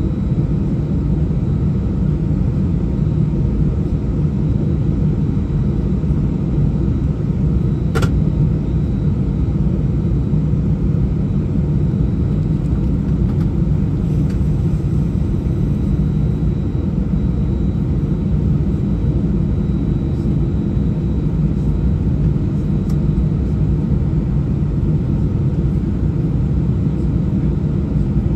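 Steady low cabin rumble inside a taxiing Airbus A319, its engines at taxi power. A single short sharp click comes about eight seconds in.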